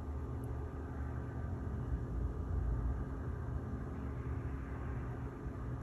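Steady low background rumble with a faint hum, no distinct events: room noise such as a running appliance or ventilation.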